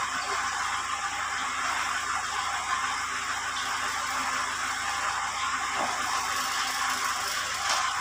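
Tractor engine running steadily while its rear-mounted crane boom works.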